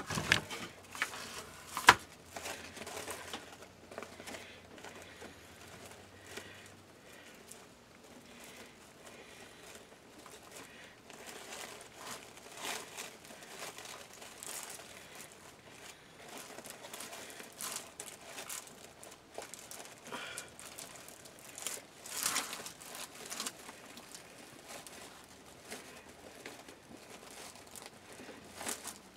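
Irregular rustling and crinkling of deco mesh and ribbon bows being handled and adjusted on a wreath, with one sharp click about two seconds in.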